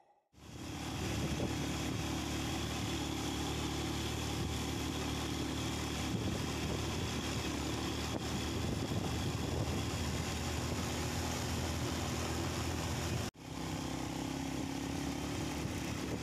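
An engine running steadily at an even speed, with a brief break about three-quarters of the way through before it carries on the same.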